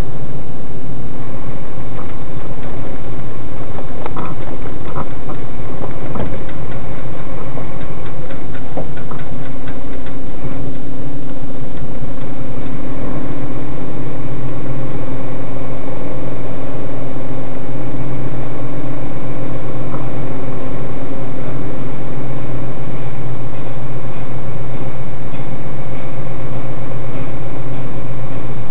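Vehicle engine running steadily at low speed over rough dirt, heard from inside the cab, with a few knocks about four to six seconds in.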